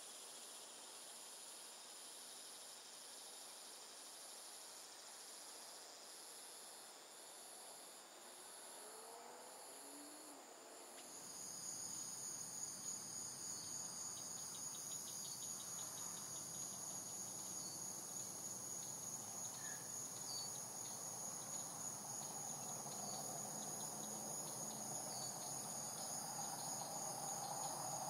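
Evening insect chorus humming: steady high-pitched trilling that pulses about once a second at first. About eleven seconds in it changes to a louder, denser drone over a low background noise.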